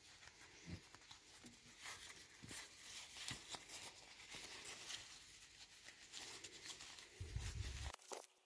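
Faint rustling and crinkling of stretch fabric being handled and turned inside out, with many small scattered clicks. A brief low rumble comes near the end.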